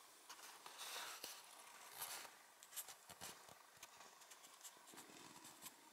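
Near silence: quiet room tone with a few faint, scattered clicks and a soft rustle.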